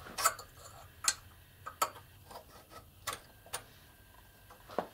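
Small metal parts of a Stirling 14P .22 rifle bolt clicking and knocking as they are pressed down into the bolt body during reassembly: about six sharp clicks at uneven intervals, with a few fainter ones between.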